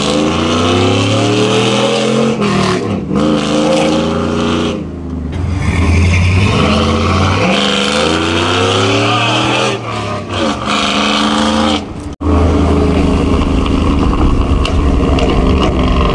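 2000 GMC Sierra pickup's engine, with headers fitted, being driven hard through the gears: its note climbs in pitch and falls back at each upshift, three or four times. About twelve seconds in the sound cuts off abruptly, then the engine runs on at a steadier pitch.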